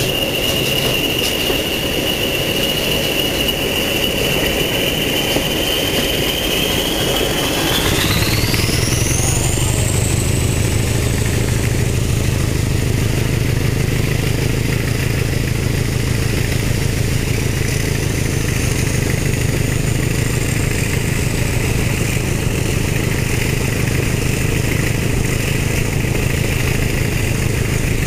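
Class 31 and Class 20 English Electric diesel locomotives working hard under power, a heavy engine drone under a steady high whine. About eight seconds in the drone grows deeper and louder and the whine sweeps sharply upward as the power is opened up.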